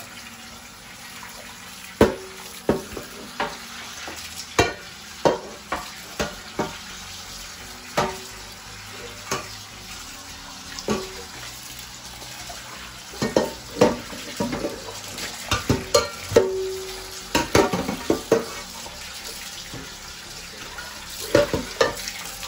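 Hand dishwashing in a stainless steel sink: tap water runs steadily while metal pots and pans knock against the sink and each other. Some knocks ring briefly, and the clatter is busiest about two-thirds of the way through.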